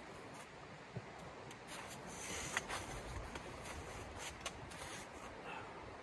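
Steady rush of a shallow stream, with rustling and a handful of sharp clicks in the middle as a person moves about and settles into a folding camp chair.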